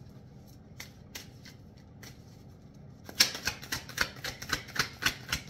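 Tarot card deck being shuffled by hand: a few soft clicks as the cards are handled, then, about three seconds in, a fast run of sharp card slaps, six or seven a second.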